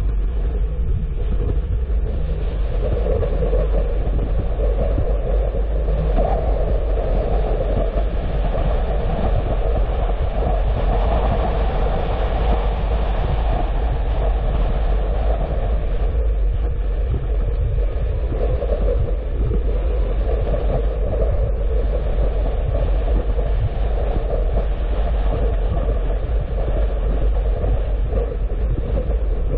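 A car driving steadily: a continuous low rumble with a mid-pitched hum that swells and eases several times.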